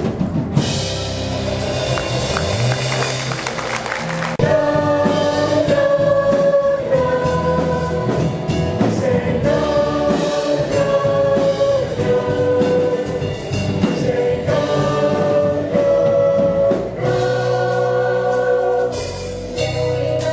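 Live church band of drums, bass, guitar and piano playing, with voices singing long held notes that come in about four seconds in.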